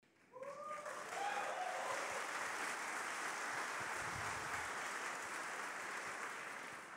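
Audience applause, with a short cheer or whoop from someone about half a second in; the clapping thins out near the end.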